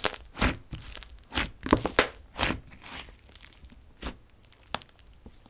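Fingers pressing and pulling a thick, fluffy slime, giving a quick run of crackly squelches and air-bubble pops in the first three seconds, then a few sparser ones.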